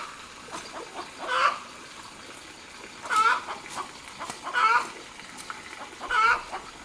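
Chickens calling: four short calls about a second and a half apart, with a few faint clicks between them.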